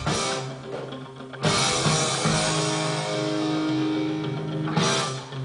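Rock music with guitar and drums, with a long held chord from about a second and a half in until near the end.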